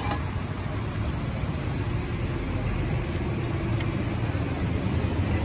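Steady low rumble of road traffic with an engine running, and a faint hum coming in about halfway through.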